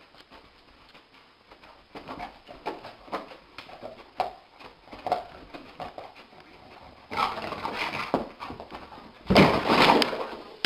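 A sleeping dog's paws scuffing and knocking against the carpet in quick irregular strokes as it runs in its sleep, building to a louder scramble and then a heavy thud and clatter near the end as it jumps up and runs into the wall.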